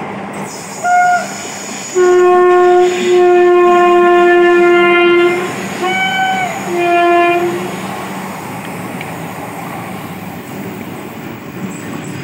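Electric locomotive air horn: a short toot about a second in, one long blast of about three seconds, then two short blasts, over the steady rumble of a long train of loaded flatcars rolling past.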